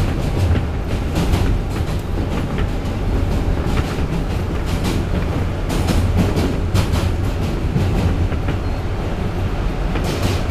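R160B subway car running along the track, heard from inside the car: a steady low rumble from the wheels and running gear, broken by irregular sharp clacks from the wheels on the rails.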